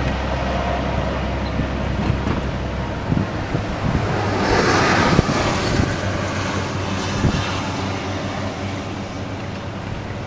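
Wind buffeting the microphone over a low vehicle rumble, with a louder rushing swell about halfway through.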